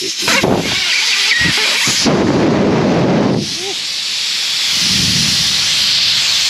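Pressurised air hissing out of a car tyre's valve as the tyre is let down. Over the first three seconds there is rough handling noise and knocks, then a steady high hiss.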